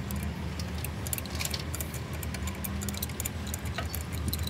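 Light, irregular metallic clicks and clinks of small parts and tools being handled on a diesel engine's cylinder head, over a steady low hum.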